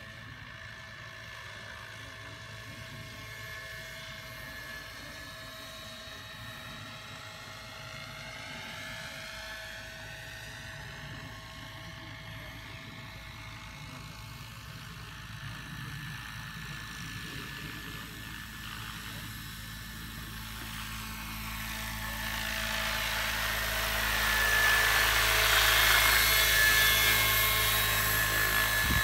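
Vario Schweizer 300C scale radio-controlled model helicopter in flight, its engine and rotors a thin, high-pitched whine while it is far off. The sound grows much louder about three-quarters of the way through as the model comes in close and hovers low.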